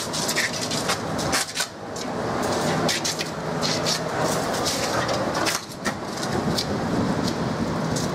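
South Western Railway Class 450 Desiro electric multiple unit running past at the platform, its third-rail pickup shoes arcing on the snow-covered conductor rail. Irregular sharp crackles and snaps sit over the train's steady running noise.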